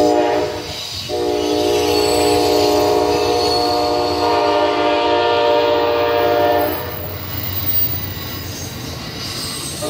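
Amtrak passenger train passing with the rumble of its wheels on the rails, while the locomotive's multi-note horn sounds a short blast, then one long blast of about five and a half seconds, and starts another near the end.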